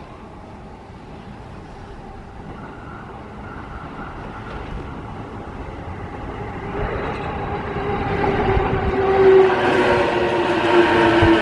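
Electric train approaching along the JR Nambu Line track, its running noise and motor whine growing steadily louder, with several tones that drift slightly lower in pitch over the last few seconds.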